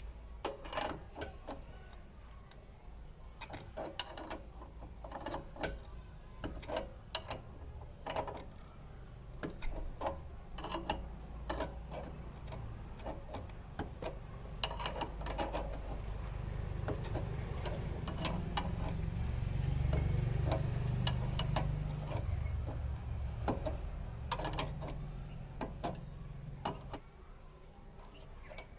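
Irregular metallic clicks and clinks of hand tools and parts being worked on a scooter. A low hum swells in the middle and fades near the end.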